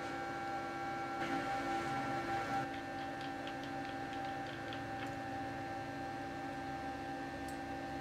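Steady electrical hum from the idle CNC router, with light metallic clicks as the spindle's collet nut and cutter are undone by hand.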